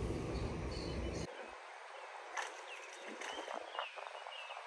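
Quiet pond-side ambience with faint bird chirps. A low wind rumble on the microphone stops abruptly about a second in, and a few light clicks and taps follow as a lure is cast on a spinning rod and lands in the water.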